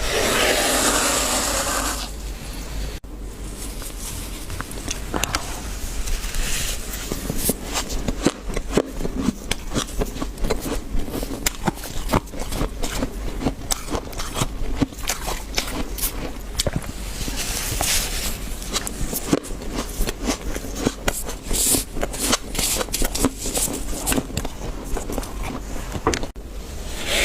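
Deep-freezer frost being crunched and scraped, in a dense run of sharp squeaky crunches several a second. Longer scraping rushes come at the start and twice more, in the middle and later on.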